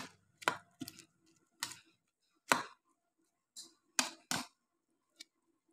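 Serving utensil clicking and tapping against a metal serving tray of stew: about nine light, sharp clicks at uneven intervals.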